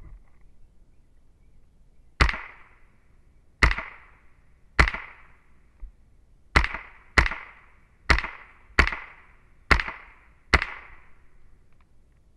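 Smith & Wesson M&P 15-22, a semi-automatic .22 LR rifle, firing nine single shots at an uneven pace, roughly one a second. Each is a sharp crack with a short tail.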